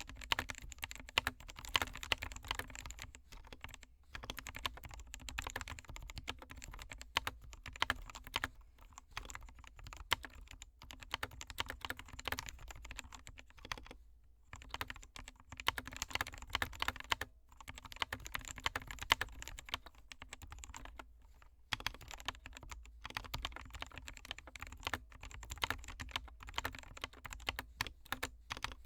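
Typing on an SK61 60% keyboard with lubed Gateron Optical Black linear switches and pudding keycaps: quick, continuous keystrokes broken by a few short pauses.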